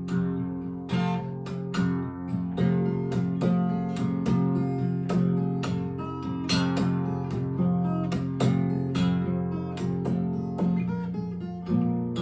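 Acoustic guitar playing an instrumental blues break: picked treble notes and strums over a steady thumping bass line.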